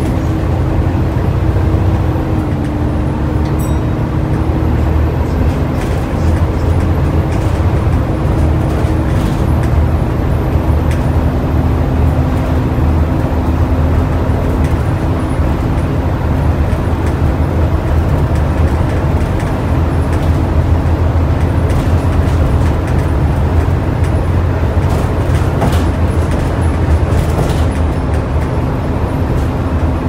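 Volvo B7TL double-decker bus's diesel engine and ZF automatic gearbox running on the move, heard from inside the lower deck, with the steady 'hoovering' whine over the engine drone. The whine's pitch drops slightly a couple of times, and light interior rattles and clicks come through.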